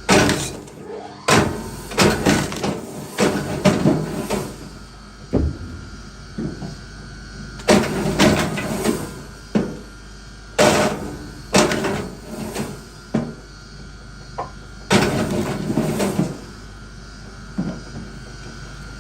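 Repeated hard knocks and clattering of wood, in bursts of several strikes every few seconds with quieter pauses between.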